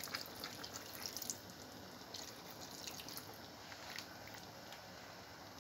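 Thin stream of water pouring and splashing into a full pot of stewed cabbage, tapering off about a second and a half in, followed by a few faint drips.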